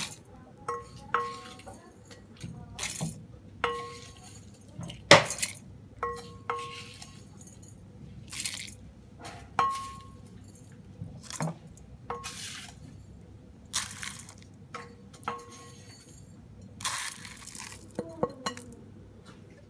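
Dry roasted whole spices being scooped and tipped into a stainless steel mixer-grinder jar: metal utensils clink against the jar about every second or two, leaving a short ringing tone, and the dry seeds rattle and hiss as they slide in.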